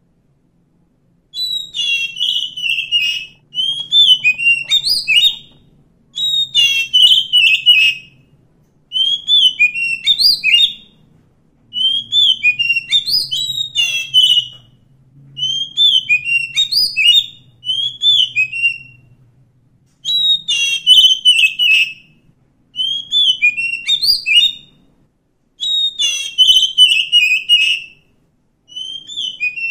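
Oriental magpie-robin singing: a run of about ten loud song phrases, each about two seconds long with short pauses between, made of quick notes sweeping up and down.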